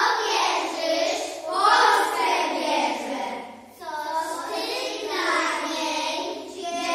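A group of young children singing together, with a brief pause for breath about halfway through.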